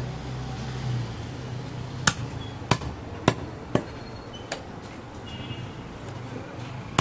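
Large butcher's knife chopping through goat ribs on a wooden chopping block: about five sharp knocks, irregularly spaced, starting about two seconds in.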